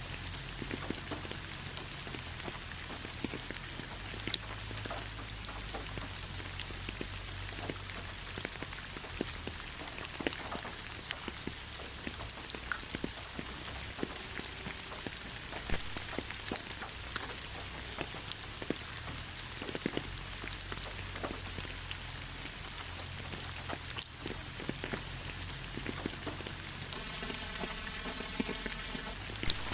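Steady rain falling, with many separate drops tapping close by. Near the end a faint pitched buzz joins for about two seconds.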